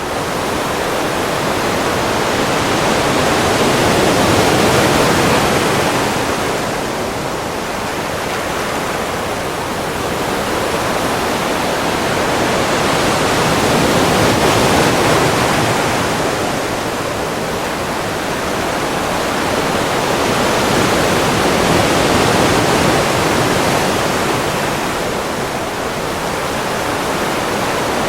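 Ocean waves washing in as a continuous hiss that slowly swells and eases, cresting about every eight to ten seconds.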